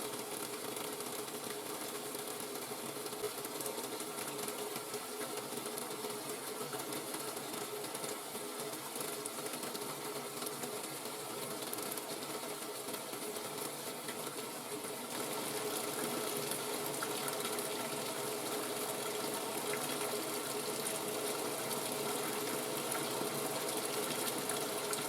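Top-load washing machine filling: water running into the tub as a steady hiss with a steady hum under it, a little louder from about two-thirds of the way through.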